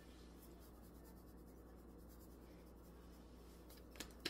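Near silence: steady low room hum, with a light click near the end.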